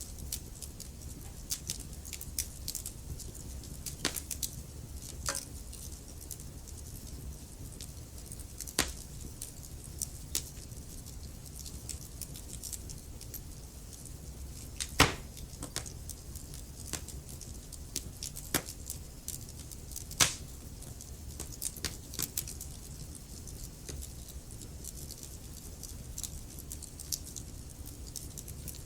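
Wood fire crackling in a fireplace: scattered sharp pops and snaps over a low steady rumble, with the loudest pops about halfway through and again a few seconds later.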